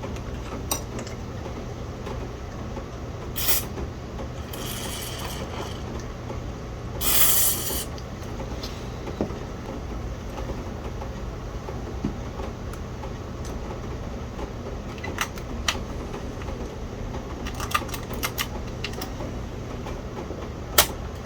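Light clicks and taps from handling small parts, with a few short hisses, the loudest a brief burst about seven seconds in.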